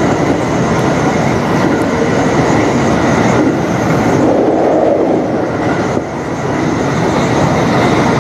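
JR West 225 series electric train running at speed between stations, with steady rolling noise from the wheels on the rails.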